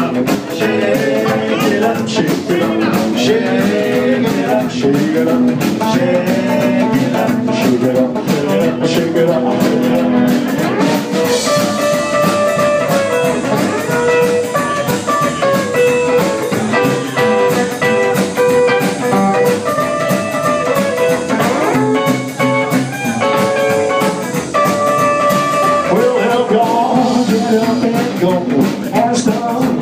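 A small band playing live: electric guitar, upright bass and drum kit. From about ten seconds in the electric guitar plays a single-note lead line over the bass and drums.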